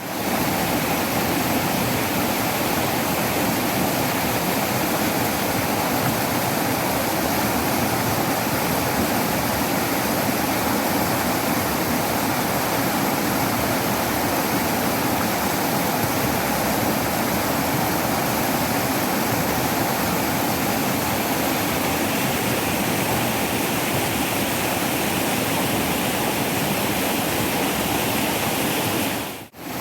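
Waterfall: water pouring and splashing in a steady, even rush, dropping out briefly just before the end.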